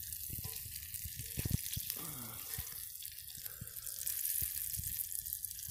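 Breaded bass fillets frying in a pan of hot oil: a steady sizzle with many small scattered pops and crackles.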